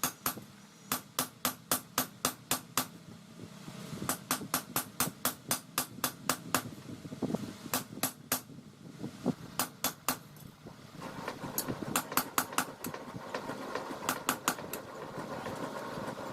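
Hand hammer blows on steel from a car leaf spring being forged into a dao blade on an anvil, struck in quick runs of about three to four a second with short pauses between runs. About two-thirds of the way in, a steady motor hum comes in under the blows.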